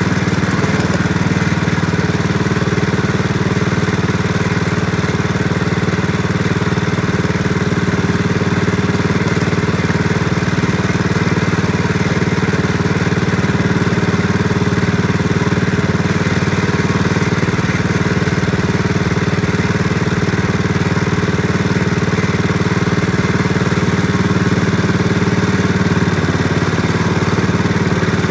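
A small engine running steadily at an even speed, with no change in pitch or level.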